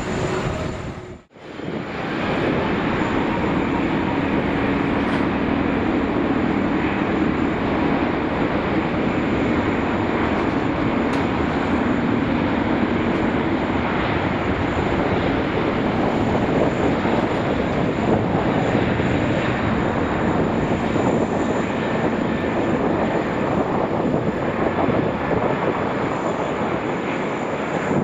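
Airbus A380 jet engines running steadily as the airliner taxis, a continuous whining rumble. The sound cuts out briefly about a second in, then comes back at the same level.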